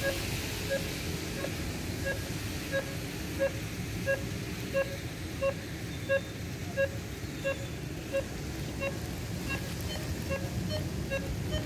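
Audible pedestrian crossing signal beeping at an even pace, about three short beeps every two seconds, over the steady noise of rain and road traffic.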